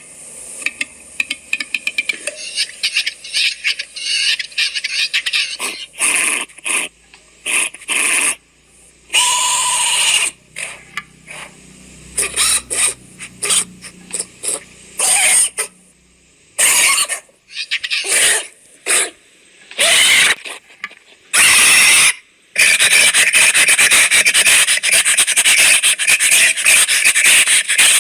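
Harsh, animal-like squeals and screeches in a string of separate calls of varying length, giving way about four-fifths of the way through to one long continuous screech, played as reconstructed dinosaur calls.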